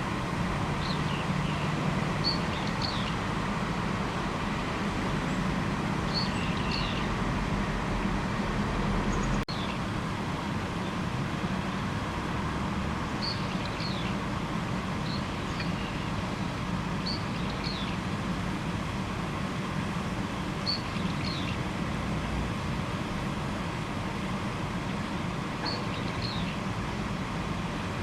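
A small bird repeating the same short, high chirp phrase every couple of seconds: a sharp note and then a quick falling note. Behind it is a steady background rumble and hiss like distant traffic.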